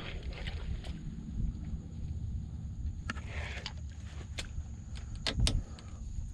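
Wind rumbling on the microphone on an open boat, with scattered light clicks and knocks, the loudest a pair of knocks about five seconds in, over a faint steady high whine.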